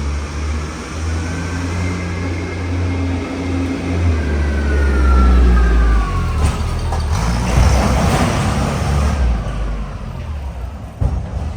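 Kenworth W900 semi truck's diesel engine running and pulling, its note rising and falling, with a high whine that falls in pitch around the middle.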